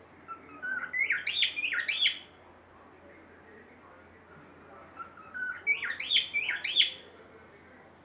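Pet cockatiel whistling a short song phrase twice, about four seconds apart. Each phrase is a quick run of rising-and-falling whistled notes that climbs in pitch.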